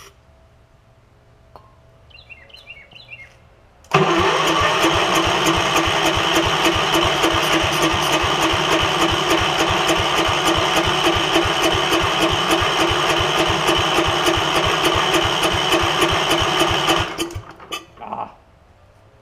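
Gravely 5665's single-cylinder Kohler engine cranking on its electric starter for about thirteen seconds without catching: a steady, evenly pulsed turning-over that starts about four seconds in and stops near the end. The carburettor is flooding and leaking gas, which the owner takes for a needle-and-seat problem; the cause is a busted fuel pump.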